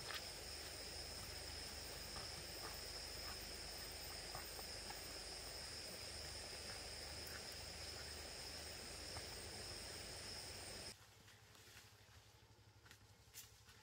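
Steady high-pitched insect chorus over quiet forest ambience, which cuts off abruptly about eleven seconds in, leaving quieter surroundings with a few faint clicks.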